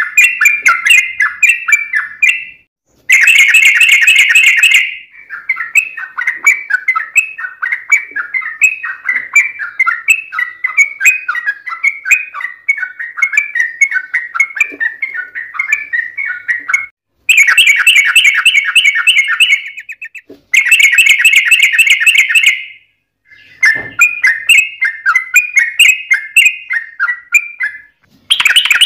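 Yellow-vented bulbuls singing: long runs of rapid, bubbling chattering notes, with several louder, denser bursts of song and a few short breaks between runs.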